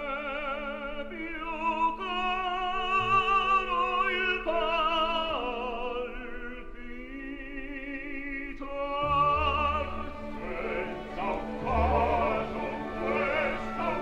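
Operatic singing over classical accompaniment: a voice holding long notes with a wide vibrato, with the accompaniment growing fuller and adding deep low notes about nine seconds in.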